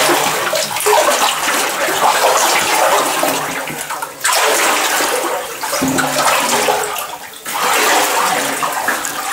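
Shallow water splashing and sloshing around rubber boots as people wade through a narrow underground tunnel, with brief lulls about four and seven seconds in.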